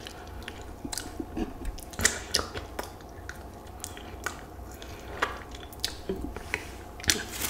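Close-up chewing of crispy, sauced fried chicken wings: irregular crunches and wet mouth sounds.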